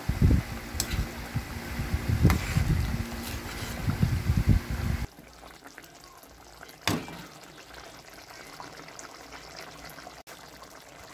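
Spatula stirring chicken curry in coconut milk in a wok, with irregular wet knocks and scrapes against the pan. About five seconds in, this drops suddenly to the quieter bubbling of the curry simmering, with one sharp click partway through.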